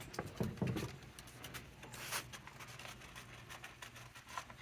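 Ice cubes clattering and clicking, a scatter of light irregular clicks with a louder one about two seconds in.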